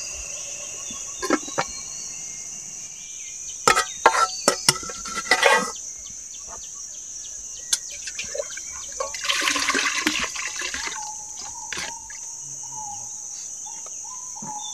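Clatter and knocks of a spoon against a metal cooking pot and plastic bowl as noodles are dished out, over a steady high chorus of insects. A short rushing sound comes about nine seconds in, and a few bird chirps.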